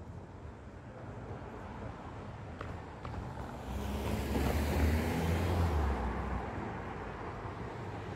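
Street traffic noise with one car passing close: its engine hum and tyre noise swell about halfway through and then fade.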